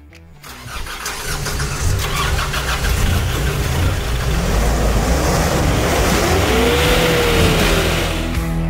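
Engine of a modified Nissan Navara PRO-4X pickup starting up and revving as the truck pulls away, swelling within the first two seconds to a loud, steady run. A smooth whine rises and falls about seven seconds in.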